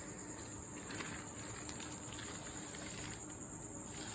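Quiet background: a steady high-pitched tone over faint hiss, with a few light clicks.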